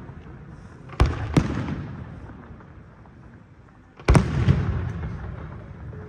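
Aerial fireworks shells bursting: two sharp bangs about a second in, then another close pair about four seconds in, each trailing off in a long fading rumble.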